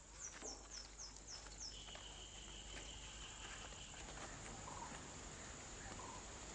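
Faint outdoor ambience: a steady high insect drone with a quick run of six falling chirps, then a steady high whistle held for about two seconds.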